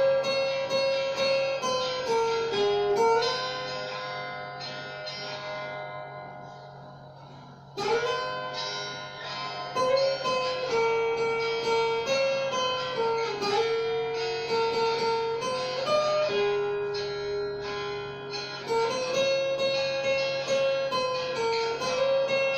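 Cort guitar picked note by note in a simple melody. About three seconds in the notes ring out and fade, and just before eight seconds the playing starts again with a sharp attack. A steady low hum runs underneath.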